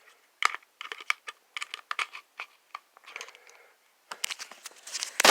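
An 18650 lithium-ion battery being handled and tested by hand: a run of light clicks and taps, with a short rustle about three seconds in.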